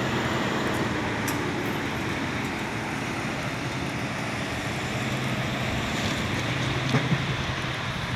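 Steady outdoor background noise with a low hum underneath, and a faint knock about seven seconds in.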